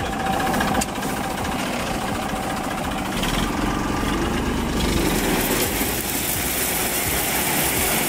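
TAFE farm tractor's diesel engine idling steadily, just after being started.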